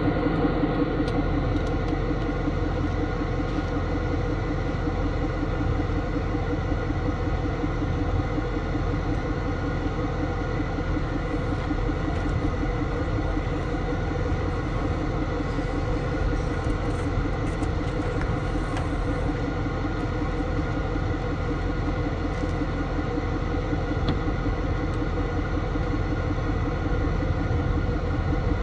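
A tow truck's engine idling steadily close by, an even drone that holds the same pitch throughout.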